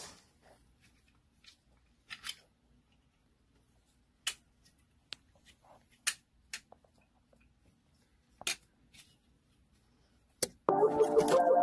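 Scattered light clicks and knocks of plastic vending-machine parts as a white plastic brush wheel is handled and fitted into a gumball machine head: about half a dozen separate taps. Near the end, loud background music comes in suddenly.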